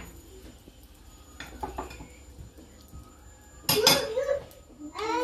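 Metal kitchen utensils and cookware clinking, a few light clicks followed by a louder clatter about three and a half seconds in.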